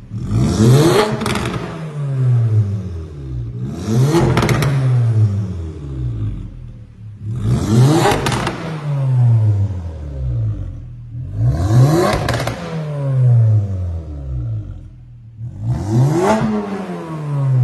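Porsche Macan's engine and exhaust, revved five times while the car stands still: each time the revs climb sharply for about a second, then fall away slowly before the next blip.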